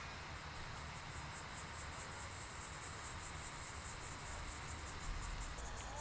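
Insect chirping in a steady rhythm, about five high pulses a second, over faint outdoor background noise.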